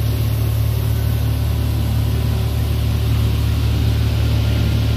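Steady low hum of a Paris Métro Line 1 train standing stopped at the platform.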